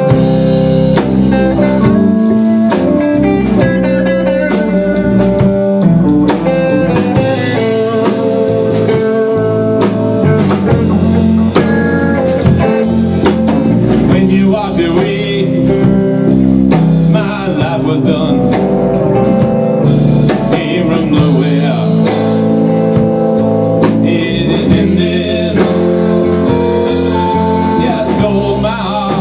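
Live band playing a song together: electric guitars, electric bass and a drum kit.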